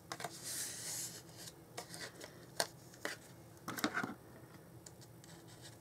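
Cardstock being handled and rubbed down along its score lines to burnish the folds: a short rubbing hiss about half a second in, then scattered light taps and paper clicks.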